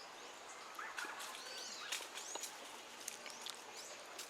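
Faint bird calls outdoors: several short chirps that sweep up and down in pitch, with scattered light clicks and ticks between them.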